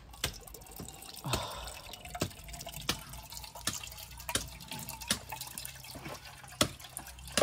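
Coconut water trickling from a hole in a husked coconut into a metal saucepan, with drops splashing into the pan about three times every two seconds.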